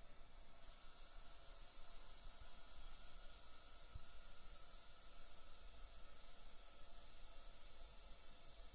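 Faint, steady high hiss of water, as from a toilet cistern refilling, starting suddenly about half a second in.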